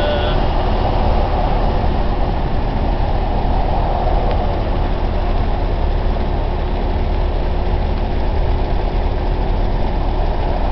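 Steady drone of a vintage Packard driving at highway speed, heard from inside the car: engine, wind and road noise blended together with a strong low rumble.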